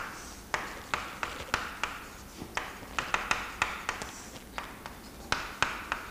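Chalk writing on a chalkboard: a quick, irregular series of sharp taps as the chalk strikes the board, each trailing into a short scratchy stroke.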